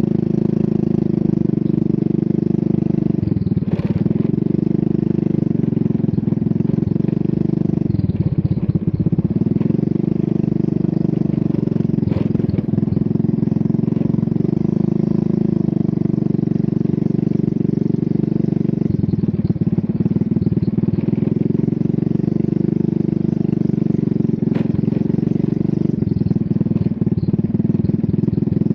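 Small motorcycle engine running steadily at riding speed, heard up close from the bike being ridden; its pitch dips briefly and picks up again several times.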